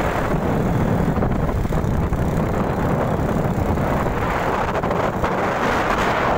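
Wind rushing over the microphone from a moving vehicle, over a steady rumble of road and engine noise.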